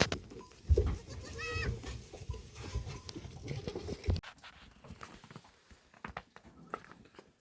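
A goat bleats once, briefly, about a second and a half in. Low rumbling thumps and knocks run through the first four seconds, then give way to scattered faint clicks.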